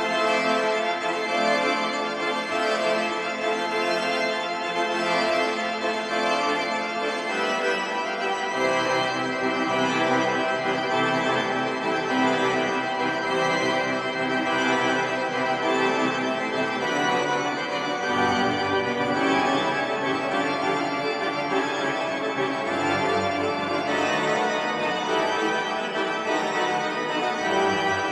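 Cathedral pipe organ, York Minster's rebuilt organ, playing full sustained chords that change every several seconds, with the bass moving to new notes about eight, eighteen and twenty-three seconds in.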